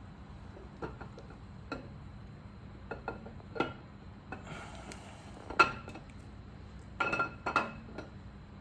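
Steel camshaft being slid by hand into an LS1 engine block's cam tunnel, its lobes and journals clinking now and then against the cam bearings and block, with short metallic rings. The loudest clink comes past the middle, and a quick run of clinks follows near the end.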